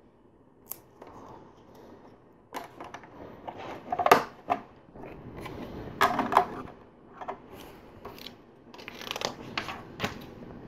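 Hands handling small plastic LEGO pieces: irregular spells of rustling and clicking plastic, loudest about four seconds in, with single sharp clicks between.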